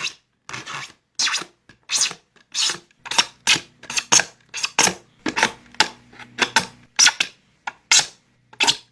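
Sharpening strokes drawn along a thin plastic fan blade at a 20-degree angle: a quick, even run of short rasping scrapes, about two a second.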